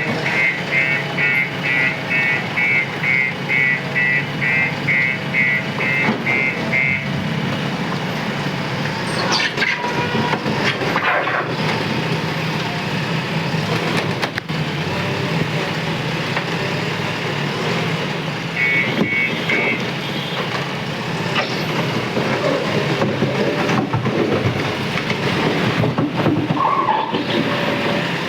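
Heavy road-building machinery running steadily, with a reversing alarm beeping about twice a second for the first seven seconds and again briefly near 19 s.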